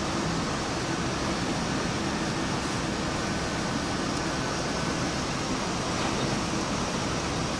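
Steady noise of kitchen ventilation, an extractor or air-handling fan running, with no distinct events.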